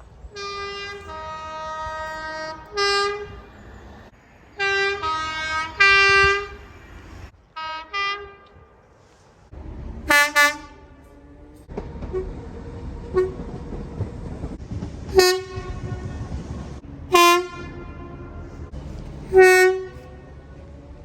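Train two-tone horns sounding: a long blast on two notes at the start, then a run of short toots, and a loud high blast about ten seconds in. After that, over the steady rumble of a moving train, short horn blasts come about every two seconds.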